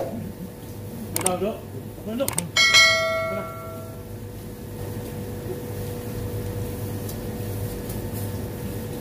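A single metal-on-metal strike about three seconds in, ringing out like a small bell for about a second, over a steady hum.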